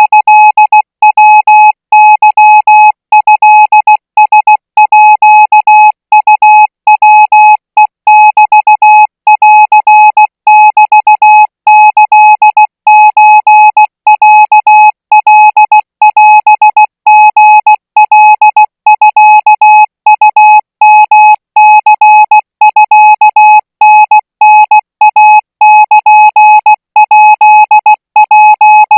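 Thai Morse code sent at 20 words per minute as a single-pitch electronic beep keyed on and off, short dits and longer dahs run together with brief gaps between characters.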